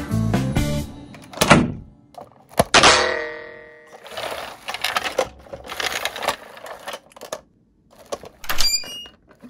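Die-cast minicars and a clear plastic carrier case being handled: irregular plastic clicks and knocks, with two louder thunks about one and a half and three seconds in, the second ringing briefly. A music jingle fades out in the first second.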